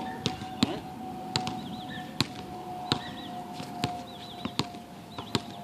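A basketball being bounced slowly on a concrete court, a sharp slap about every three-quarters of a second, seven or so in all.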